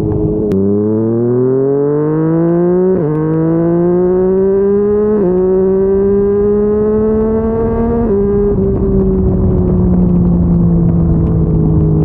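Yamaha MT-09 three-cylinder engine through a Yoshimura R55 slip-on exhaust, accelerating hard through the gears. Its note climbs in pitch with a quick drop at each upshift, three times. After about eight seconds it eases off to a steady, slowly falling note at cruise, with wind rushing underneath.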